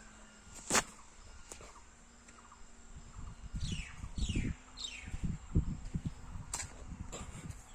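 A bird calling three quick notes that each fall in pitch, about halfway through, over irregular low rumbling and a faint steady hum. A single sharp click sounds near the start.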